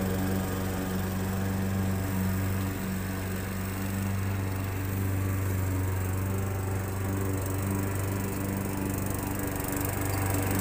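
Walk-behind gasoline push mower engine running steadily while mowing, its steady low hum easing a little in the middle as it moves away and coming back louder near the end.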